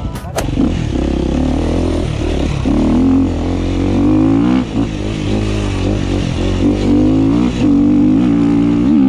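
KTM 350 four-stroke single-cylinder dirt bike engine running under throttle while riding, its revs rising and falling, with brief drops about halfway through and again near the end.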